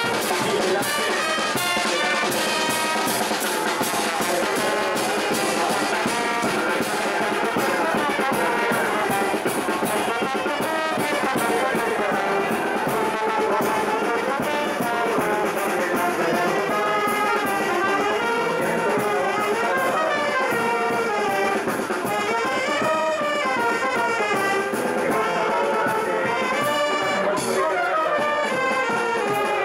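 Charanga brass band playing a tune in the street: trumpets and trombones over a steady drum beat.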